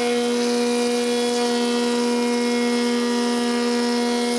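A woodworking power tool running at a steady speed, giving an even, unchanging hum.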